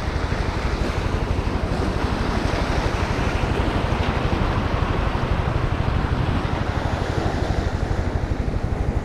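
Small waves washing over the rocks, with wind buffeting the microphone in a fast, steady flutter.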